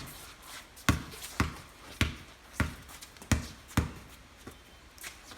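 A basketball being dribbled on a wet court: about six sharp bounces roughly every half second to second, then fainter ones near the end.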